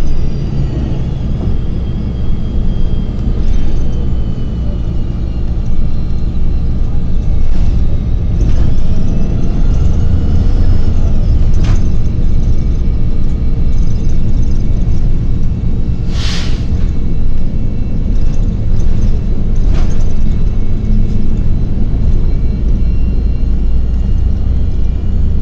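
New Flyer transit bus riding, heard from on board: a steady low rumble of engine and road, faint whines that rise and fall, and occasional rattling clicks. About 16 seconds in comes one short, sharp hiss of air, typical of the air brakes.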